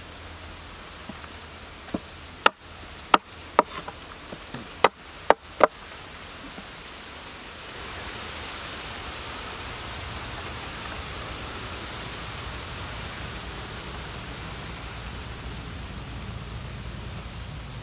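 Steady outdoor background hiss. A quick run of six or seven sharp knocks or clicks breaks it between about two and six seconds in. From about eight seconds in the hiss grows a little louder and higher.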